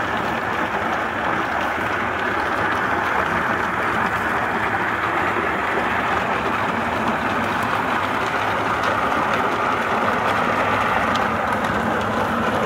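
Walnut and almond hulling machine running, a load of green walnuts being hulled in its drum under a water spray: a steady, even churning noise.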